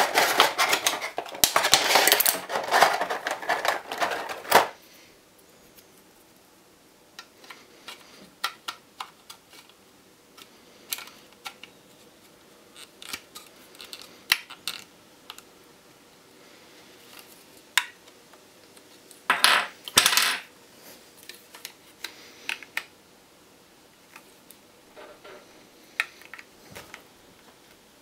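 Clear plastic blister packaging crinkling and crackling as it is handled for the first four or five seconds, then scattered light clicks and taps of a plastic airliner model being turned over in the hands, with two louder brief crinkles about two-thirds of the way through.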